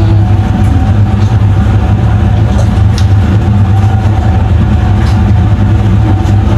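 Boat engine running steadily: a loud low drone with a thin, steady whine above it.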